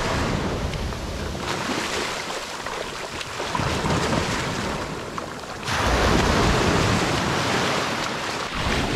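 Surf breaking and washing on a beach, with wind buffeting the microphone. The sound changes abruptly twice.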